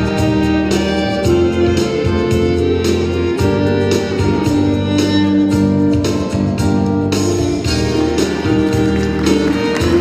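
Live Celtic and Native American fusion band music: sustained melody over a steady bass and a regular drum beat.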